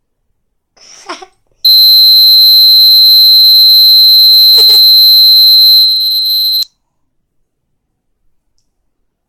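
Dog-whistle sound played back through a device's speaker: one loud, steady, high-pitched tone lasting about five seconds. It dips slightly near the end and cuts off suddenly.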